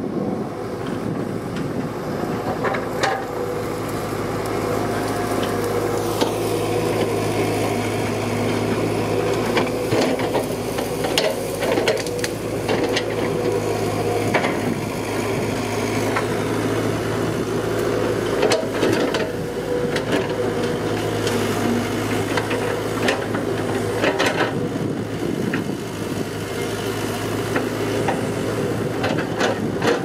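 Excavator's diesel engine running steadily, with scattered sharp knocks and cracks as the machine works.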